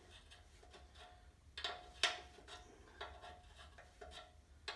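A few light metallic clicks and taps as a brake-line fitting is worked loose by hand with tools, the sharpest about two seconds in and another near the end.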